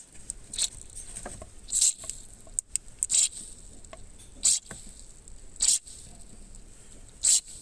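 Six short bursts of aerosol lubricant spray, about one every second and a half, from a can being sprayed into a GX71 Cresta's speedometer cable to cure a rattle that rises with road speed.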